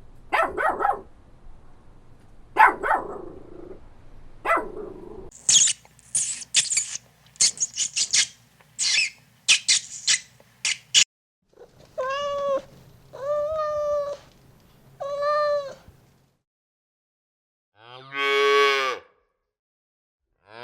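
A series of farm animal calls, one kind after another: three lower calls, then a quick string of short high squeaks, then three even, pitched calls, and one long wavering call near the end.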